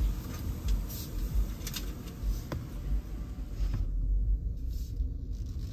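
Low, steady rumble heard inside the cabin of a Tesla Model Y as it creeps forward at walking pace over concrete, with a few faint clicks.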